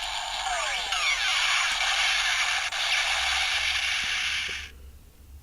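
Electronic final-attack sound effect of the DX Shakariki Sports Gashat toy, following its "Critical strike!" call: a sustained tinny whooshing effect with sweeping tones from the toy's small speaker. It cuts off about four and a half seconds in.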